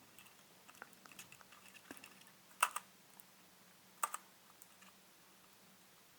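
Small parts of a camera lens assembly clicking and rattling faintly as they are wiggled and turned together by hand, with two sharper double clicks, one about two and a half seconds in and one about four seconds in.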